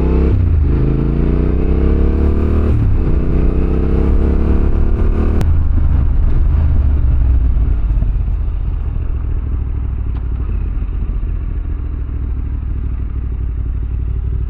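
Yamaha Ténéré 700's parallel-twin engine pulling hard through the gears, its pitch climbing, with two quick upshifts in the first three seconds. Just after five seconds the rider eases off and it settles to a steady, lower running sound.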